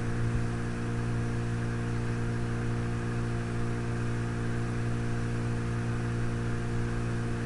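Mikatsu 9.9 hp outboard motor running at a steady speed as it pushes an inflatable PVC boat along, an even low hum over a light hiss.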